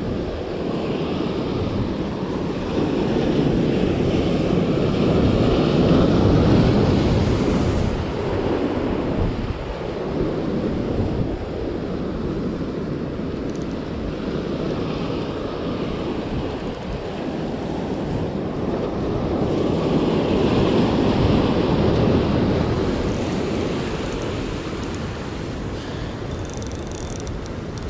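Rough surf breaking and washing among the boulders of a rocky breakwater, swelling louder twice, a few seconds in and again past the middle, with wind on the microphone.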